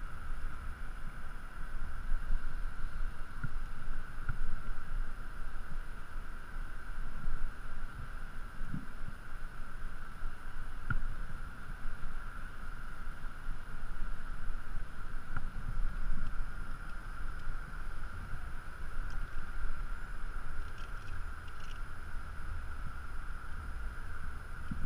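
Wind buffeting an action camera's microphone in a low, fluctuating rumble, with a steady whine running underneath and a few faint knocks.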